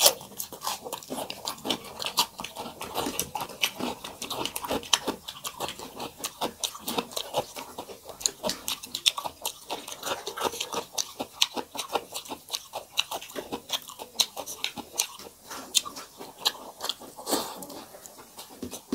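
Close-up chewing of mouthfuls of rice, dal and fried vegetables eaten by hand: a dense, continuous run of small clicks.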